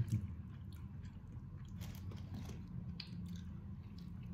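A person biting into and chewing a piece of martabak manis, a thick sweet Indonesian pancake filled with chocolate, peanuts and sesame: soft, scattered mouth clicks and crunches over a steady low hum.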